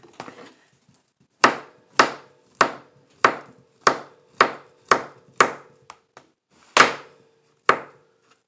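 Kitchen knife slicing a banana into rounds, each cut ending in a sharp knock on the surface beneath: about ten knocks, roughly two a second, with a short pause before the last two.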